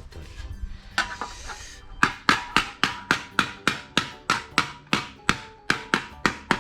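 Hammer striking sheet steel that is being shaped into a repair panel: a steady run of sharp, ringing metallic blows, about four a second, starting about two seconds in, after a brief scrape.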